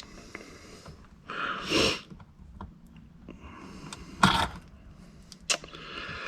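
Small clicks and taps of wire terminal hardware as a screw is worked into a negative bus bar, with a sharp click just after four seconds and another about a second later. There is a short, noisy breath between one and two seconds in.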